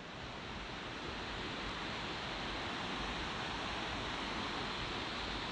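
Steady rushing noise of flowing water, building over the first second and then holding level.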